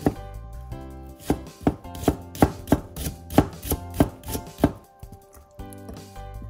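Kitchen knife slicing myoga ginger into thin strips on a wooden cutting board: one stroke at the start, then a steady run of about eleven crisp strokes, roughly three a second, stopping about five seconds in.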